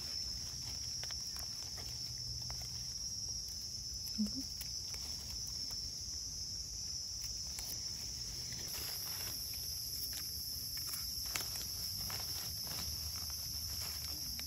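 A steady, high-pitched chorus of forest insects, with light rustling and crackling of dry leaf litter as mushrooms are dug out by hand and cut with a knife.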